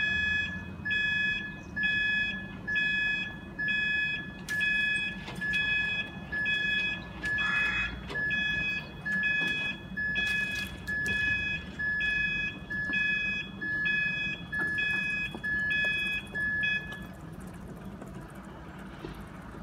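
Level-crossing warning alarm sounding in evenly spaced high beeps, about one a second, warning that a train is coming; it stops a few seconds before the end.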